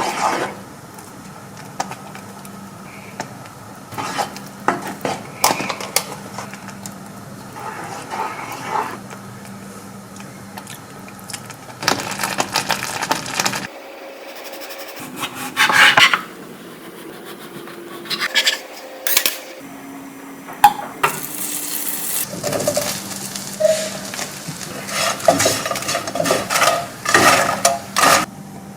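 Dishes, pots and metal cutlery knocking and clinking, a string of separate clatters over a low steady hum.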